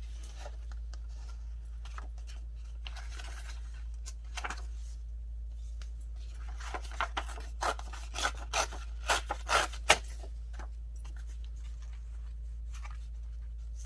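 Edge of a piece of paper being roughened (distressed) by hand: a run of short scraping strokes, coming faster and louder about seven to ten seconds in, then only a few faint ones.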